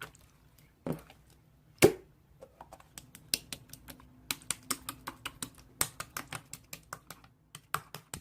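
Toy slime being pressed and worked: a run of sharp little clicks and pops, several a second, after one louder thump about two seconds in.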